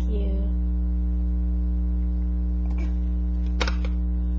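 Steady electrical mains hum with a stack of overtones, picked up on the webcam recording. There is a brief voice sound at the very start and two short scratchy rustles near the end.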